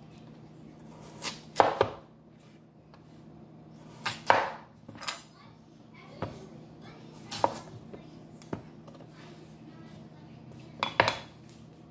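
A kitchen knife cuts through peeled potatoes and knocks on a wooden cutting board. The sharp knocks come irregularly, about one every second or two and sometimes in quick pairs.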